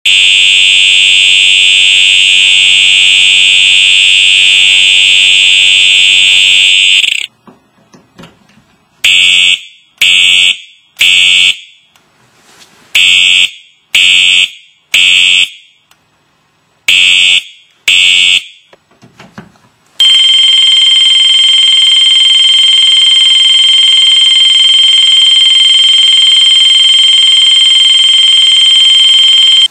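Siemens U-MMT-MCS multi-tone fire alarm horn sounding its tones in turn. First comes a steady loud horn tone with a buzz under it for about seven seconds. After a pause come short on-off horn blasts in groups separated by gaps. From about twenty seconds in, a different steady, high-pitched tone sounds.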